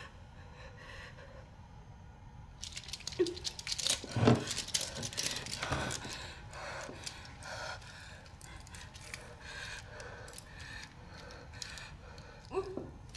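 Quiet rustling and small clicks of cloth and hands moving, with a few short breaths or murmurs.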